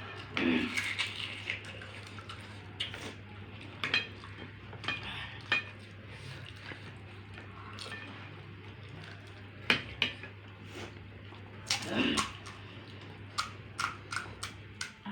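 Scattered clinks and taps of spoons and plates as fuchka are served and eaten, with one louder clink about ten seconds in, over a steady low hum.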